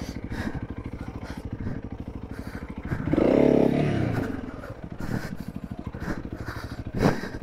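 Motorcycle engine running at idle with a steady, fast pulse. It swells louder for about a second around three seconds in, and there is a brief knock near the end.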